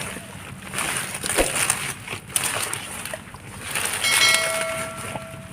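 Water sloshing and splashing in repeated rushes as hands work through shallow muddy water, with a steady horn-like tone sounding for about a second and a half near the end.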